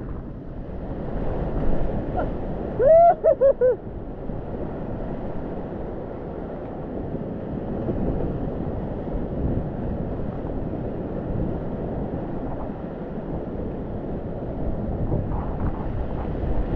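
Whitewater of a glacier-fed river at flood stage rushing through rapids, heard from the kayak on the camera's microphone with wind noise. About three seconds in, a quick run of four high pitched shouts.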